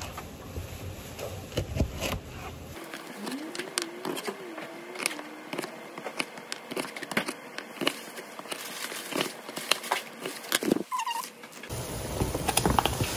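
A knife cutting Brussels sprouts on a plastic cutting board: irregular sharp knocks as the blade meets the board. Near the end, a pot of water boiling, with a few knocks as the halved sprouts go in from the board.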